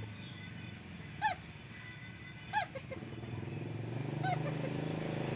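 An unidentified call, heard three times about a second and a half apart. Each is a short note that rises and falls, trailed by a few quieter short notes. An engine hum grows louder from about halfway through.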